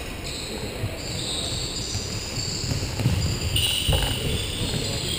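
Futsal ball and players' feet on a wooden indoor court: scattered low thuds, with one sharp kick of the ball about four seconds in.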